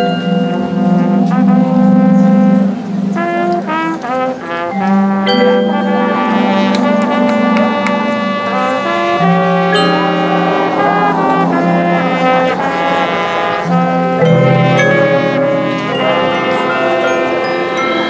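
High school marching band playing its field show: brass holding loud sustained chords, with percussion strikes between them.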